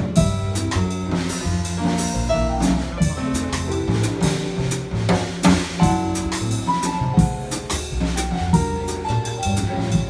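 Live jazz piano trio of piano, upright bass and drum kit playing a bossa nova, with the drums' steady pattern of cymbal and drum strikes prominent over walking bass notes and piano chords.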